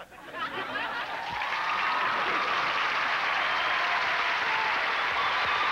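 Studio audience applauding. It builds up over the first second or so, then holds steady.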